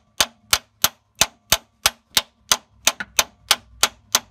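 Hammer blows on metal at the front of a VW 1.9 SDI engine: about thirteen quick, even strikes at roughly three a second, each a sharp clank with a short ring, knocking a seized part loose.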